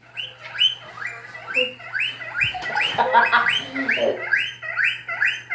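Guinea pig wheeking: a steady run of high, rising squeaks, a little under two a second, played back through a device speaker with a low hum under it.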